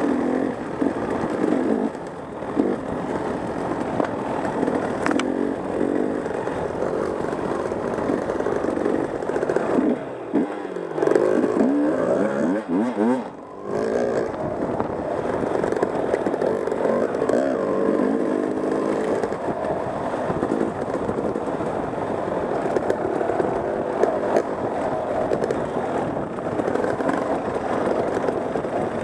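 Dirt bike engine heard from the rider's seat, its revs rising and falling with the throttle. Midway the revs fall away and climb back up over a few seconds.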